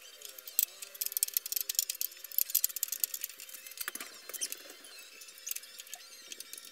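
Quick, light metallic clicking and tapping of hand tools at the front fork of a Honda EX5 Dream moped while a replacement fork is fitted, thickest in the first three seconds, with one louder knock about four seconds in.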